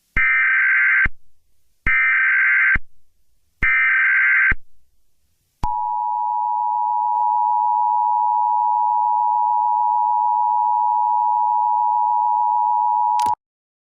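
Emergency Alert System tones: three buzzy digital data bursts of about a second each, the SAME header that opens an alert, then the steady two-tone EAS attention signal held for about eight seconds and cut off abruptly.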